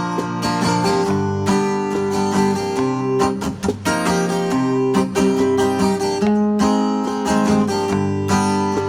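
Acoustic guitar strumming chords in an instrumental break of a live song, with notes ringing between strokes.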